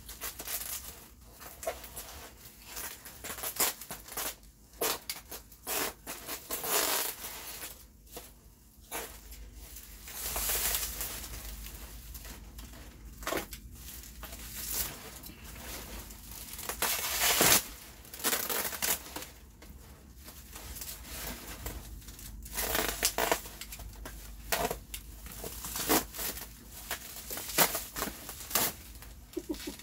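Plastic bubble wrap being pulled, unrolled and crumpled by hand, giving irregular rustling and crinkling with occasional louder crackles.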